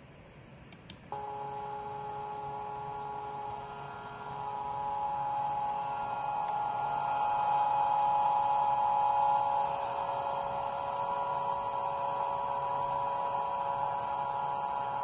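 Vibratory stress relief exciter, an electric vibrator motor clamped to a steel workpiece, starting up and running: a steady hum of several pitches from the motor and the vibrating steel sets in suddenly about a second in, grows louder over the next few seconds, then drops back a little past halfway.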